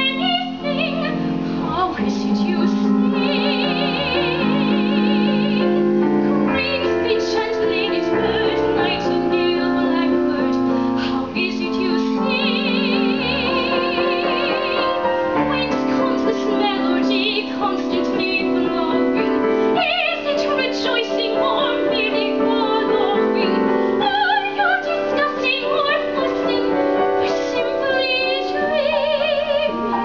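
A woman singing a musical-theatre song in a classical soprano style with a wide, even vibrato, accompanied by piano.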